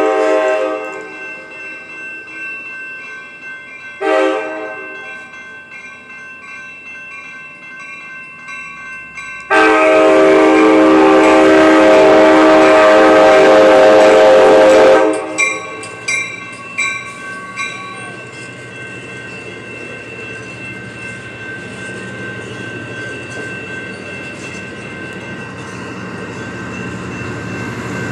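Amtrak train's multi-tone horn sounding for the crossing: a short blast about four seconds in, then a long loud blast for about five seconds, followed by a few brief toots. Under it the grade-crossing bell rings steadily, and the train's rumble builds near the end as it reaches and passes the crossing.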